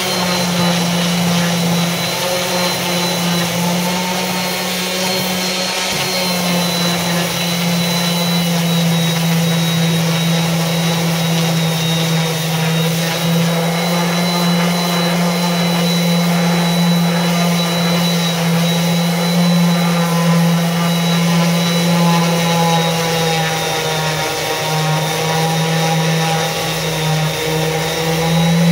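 Electric random orbital sander running steadily as it sands a wooden board, a continuous motor hum whose pitch wavers slightly near the end as the pressure on it changes.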